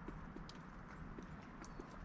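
Melting snow: meltwater dripping in irregular taps over a steady hiss.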